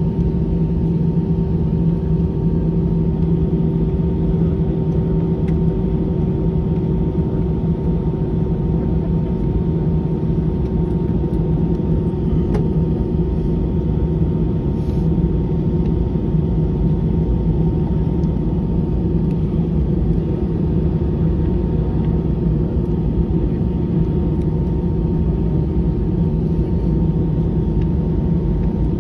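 Cabin noise inside an Airbus A320-214 with its CFM56-5B engines running: a steady hum and rush with a few constant tones and no change in pitch.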